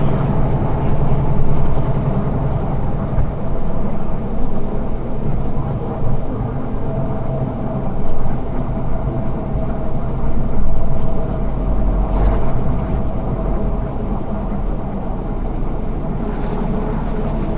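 Semi truck's engine running with road noise, heard from inside the cab as a steady low rumble.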